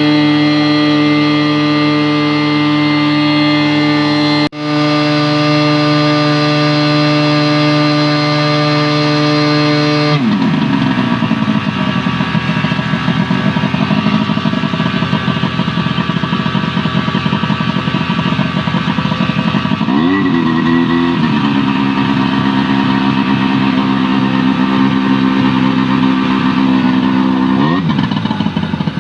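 Tohatsu V50 Rabbit fire pump engine running at high speed, then throttled down about ten seconds in to a lower, rougher-firing speed. It picks up slightly around twenty seconds and revs up again near the end, with a momentary break about four seconds in.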